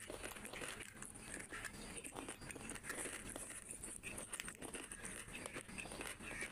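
Close-miked eating by hand: chewing mouthfuls of rice and curry, with fingers squishing and mixing rice and curry on the plate, heard as a continual run of small clicks and crackles.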